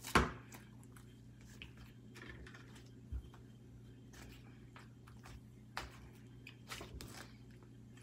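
Slime with chocolate chips mixed in being squished and kneaded by hand: faint sticky squishes and small clicks, with one sharper knock just after the start.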